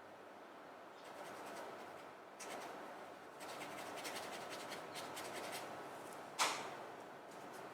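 Paintbrush scratching and rubbing over rough-surface watercolour paper in a run of short strokes. About six seconds in there is one brief, sharp chirp that falls quickly in pitch, the loudest sound here.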